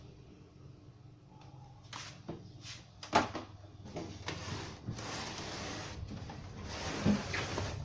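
Handling noises on a workbench: a few knocks and clatters, the loudest about three seconds in, then two stretches of scraping, sliding noise, the longest lasting about two seconds.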